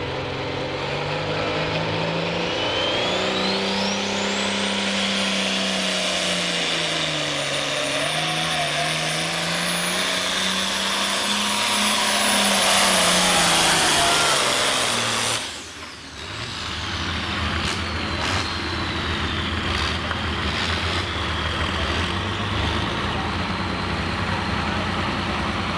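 International Harvester hot stock pulling tractor's turbocharged diesel engine working under full load as it pulls the sled, its pitch rising and falling, with a turbo whine that climbs steeply a few seconds in and then holds high, growing louder. About 15 seconds in it breaks off abruptly, and a steadier, lower engine hum with a few clicks follows.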